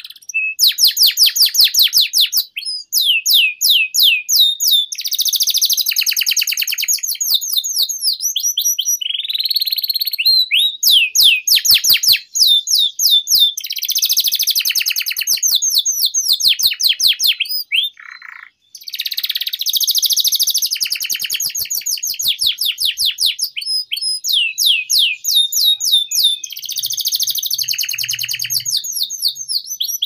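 Domestic canary singing a long, vigorous song of fast trills and rolls: runs of rapidly repeated high whistled notes, each sweeping downward, with a few brief pauses.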